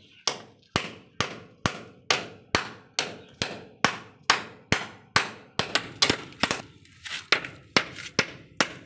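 Repeated sharp blows from a hand tool striking something hard, steady and evenly spaced at about two a second.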